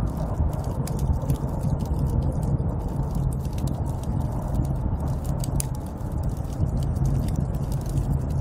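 Snowstorm wind ambience: a steady low rushing wind noise, with many small sharp crackles and clicks scattered through it.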